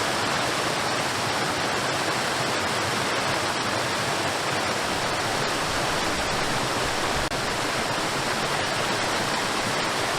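Cordless stick vacuum cleaner running steadily, a loud, even rushing of air with no change in pitch.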